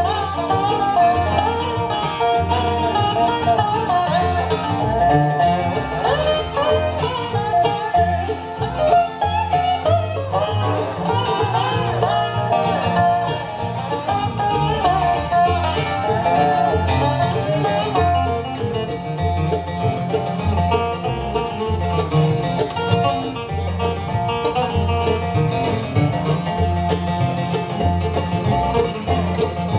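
Live bluegrass band playing: fiddle, mandolin, dobro and two acoustic guitars over an upright bass, with a lead melody line running over steady bass notes.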